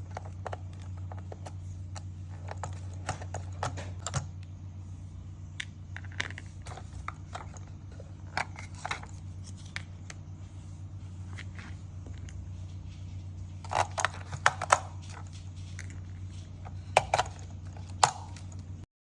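Hands handling a toy RC car and its packaging: scattered small clicks, scrapes and crinkles over a steady low hum, with louder clusters of clicks about fourteen and seventeen seconds in.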